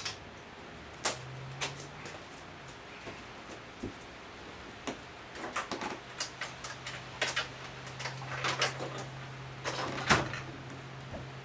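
Scattered light clicks and knocks of tools or parts being handled. A steady low hum sounds briefly about a second in and again through the second half.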